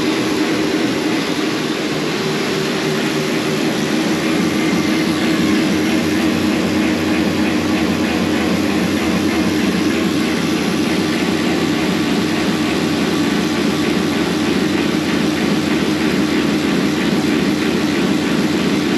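A motor running steadily and without a break while the dirt late model's Ford race engine has its oil system primed before a start.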